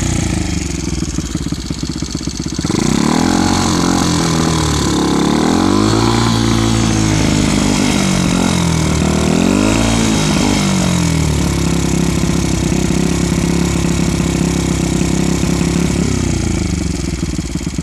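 Honda Monkey's 88cc single-cylinder four-stroke engine running through an oval aftermarket silencer with a baffle in the outlet. It idles, then is revved up and back down several times, holds a steady higher speed for about five seconds, and drops back to idle near the end.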